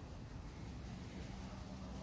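Faint outdoor background noise, mostly a low rumble, with a faint steady hum entering about halfway through.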